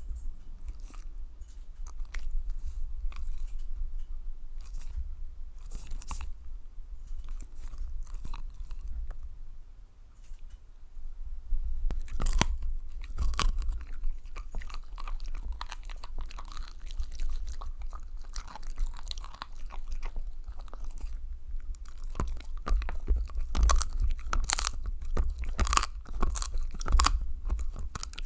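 A small dog chewing and crunching on a hard dried chew treat held by hand close to the microphone: irregular crisp crunches and gnawing, with a short lull about ten seconds in and denser, louder crunching over the last several seconds.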